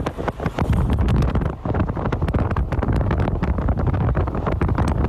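Wind buffeting the microphone of a phone filming from a moving vehicle, over the steady low rumble of the vehicle on the road.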